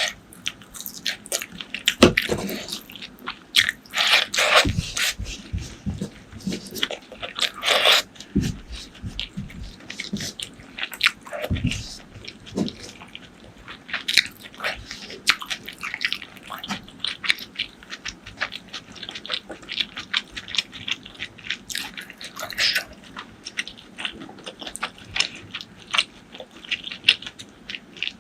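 Close-up eating sounds: wet chewing with frequent small crunches and clicks, busiest in the first third.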